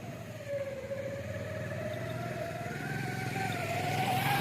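A motor vehicle engine running, its pitch dipping and then slowly rising as it gets louder.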